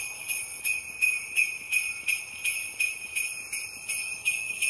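Sleigh bells shaken in a steady beat, about three shakes a second, playing alone as the intro of a song.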